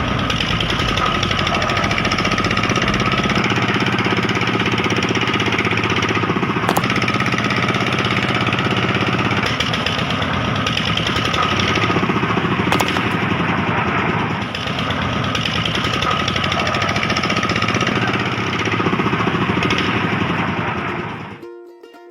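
A small electric motor and gearbox running with a steady, fast rattle, then cutting off shortly before the end.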